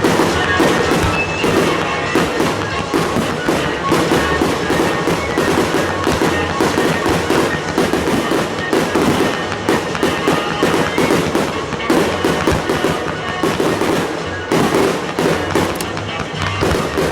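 Many fireworks and firecrackers going off in rapid, overlapping bangs, with music playing underneath.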